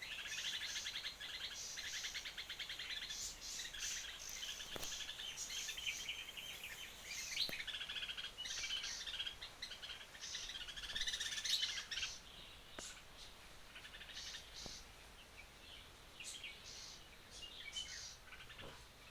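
Bird chirping in quick high trills and tweets, busy for the first twelve seconds or so, then thinning to scattered single chirps.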